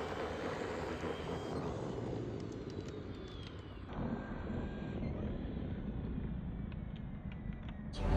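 Electric Power Wheels ride-on car driving, a steady noise of motors, gearboxes and tyres; the sound changes abruptly about four seconds in.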